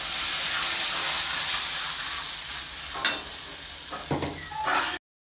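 Ground coconut, rice and cardamom paste poured into a hot kadai of ghee-fried jackfruit, sizzling loudly at first and then quieter as a ladle stirs it, with a clink of the ladle on the pan about three seconds in.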